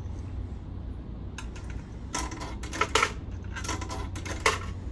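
Coins clinking into the coin slot of a coin-operated massage chair's coin box, in two clattering bursts with the sharpest clinks about three and four and a half seconds in, over a steady low hum.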